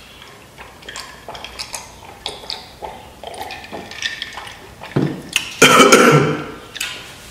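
Mouth and swallowing sounds while drinking from a glass jar, then a loud fit of coughing about five seconds in as the drink goes down the wrong pipe.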